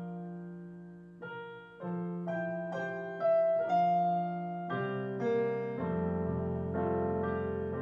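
Background piano music: notes and chords struck one after another and left to fade, with a lower chord held near the end.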